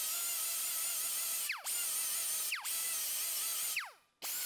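Die grinder with a small abrasive disc grinding down TIG tack welds on a sheet-steel fender butt joint: a steady high whine, let off three times so the whine falls as the disc slows, nearly stopping before starting again near the end.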